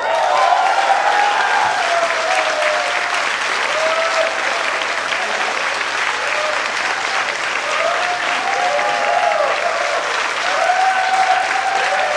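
Audience applauding steadily after the music has stopped, with voices calling out over the clapping.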